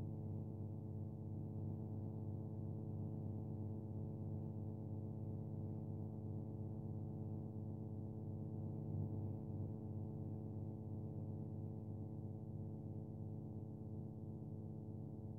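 A steady low drone with many evenly spaced overtones, unchanging in pitch and level.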